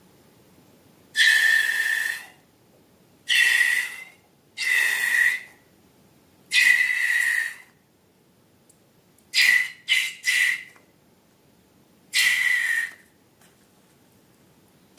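Air squealing out through a stretched balloon neck in eight short bursts, each a high steady whistle with a hiss. Three come quickly together a little past halfway.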